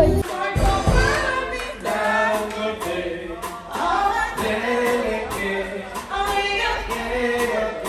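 A song with a voice singing over a musical backing.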